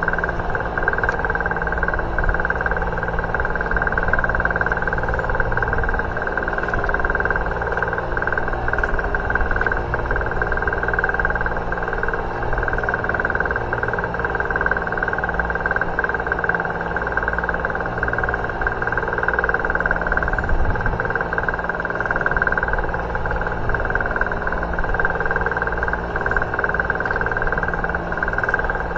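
An engine on a fishing boat running steadily at a constant speed, a continuous drone with a steady whine in it.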